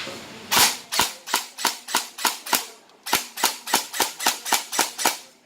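Bolt AKS-74U airsoft electric gun with BRSS blowback recoil system fired on semi-automatic: about fifteen sharp single shots in quick succession, roughly three a second, in two runs with a short pause near the middle.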